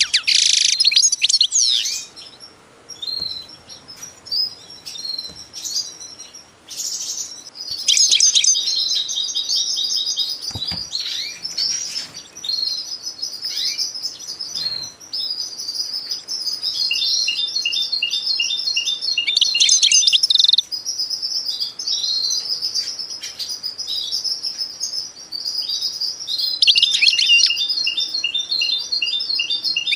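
Small birds chirping and singing: a busy mix of high chirps and fast repeated-note trills, with a quieter lull of a few seconds near the start.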